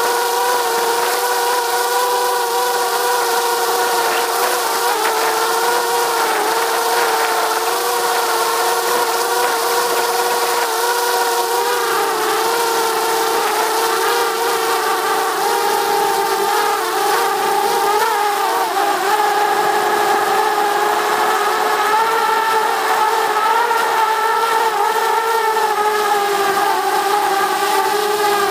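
DJI Mavic Mini quadcopter's four motors and propellers buzzing in flight, heard close up from a camera mounted on the drone. The buzz is steady, its pitch wavering slightly as the drone holds against the wind, over a hiss of rushing air.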